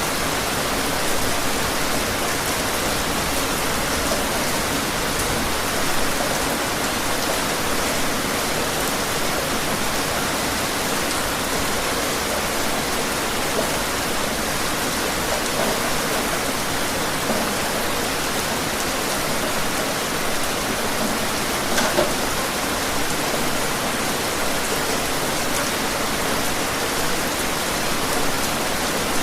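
Steady rain falling, an even hiss with now and then a louder single drop close by, the clearest about 22 seconds in.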